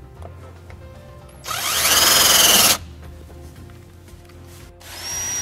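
Cordless drill/driver driving a screw to fasten a P-clamp to a truck cab's sheet-metal back wall: one loud run of about a second with the motor pitch rising, then a second, shorter run starting near the end.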